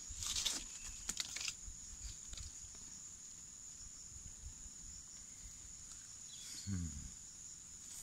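Steady high-pitched insect drone throughout, over rustling and clicking as the tapper handles the rope-bound kitul palm flower stalk in the first second and a half. A short low sliding sound comes about two-thirds of the way in.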